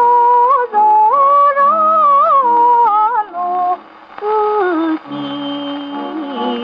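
Acoustic Victrola gramophone playing a 78 rpm Columbia shellac record of a 1930s Japanese popular song (kayōkyoku): a sliding, bending melody over orchestral accompaniment. About four seconds in the music drops briefly in loudness and falls to low held notes.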